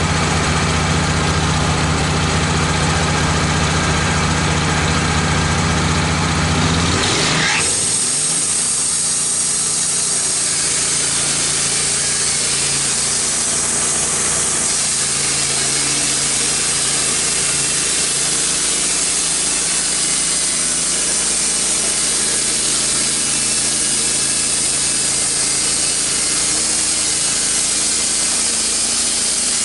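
Wood-Mizer LT15 portable band sawmill: its engine idles with a low hum, then about seven seconds in it speeds up and the band blade runs, sawing through a red oak log with a steady high hiss.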